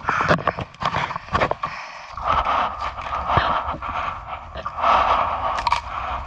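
Gale-force wind gusting over the microphone, swelling and easing in waves, with irregular knocks and rattles of gear as the swamped dinghy and its outboard are handled alongside.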